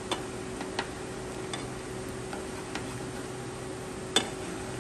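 Chopsticks stirring coconut-milk sauce in a small pot, knocking against the pot in light, irregular clicks, the loudest about four seconds in. A steady low hum runs underneath.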